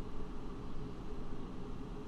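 Steady cabin noise of a Boeing 757-200 heard from a window seat: its turbofan engines idling on the ground, a low, even rumble with a faint steady hum.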